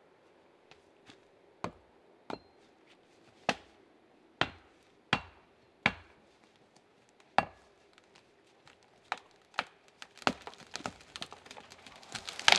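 A spruce being felled: about ten sharp axe knocks at the base of the trunk, which drive the cut open. About ten seconds in, the wood crackles and snaps as the tree tips over. Near the end it crashes down through the branches to the ground, the loudest sound of all.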